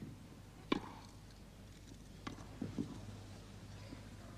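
Tennis ball being struck by rackets and bouncing on a grass court during a rally: sharp pocks, two strong ones close together at first, then softer ones about two to three seconds in.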